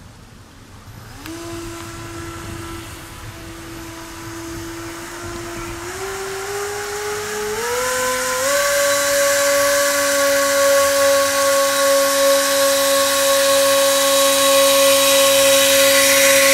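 Homemade radio-controlled foam boat's electric motor and propeller whining steadily, starting about a second in. The pitch steps up twice as the throttle is opened, around six and eight seconds in, and the whine grows louder as the boat comes closer.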